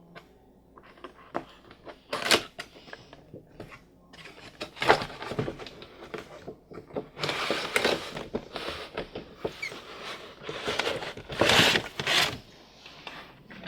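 Cardboard box of a die-cast model car being opened and handled: scattered clicks and knocks, with louder stretches of rustling and scraping packaging in the middle and near the end.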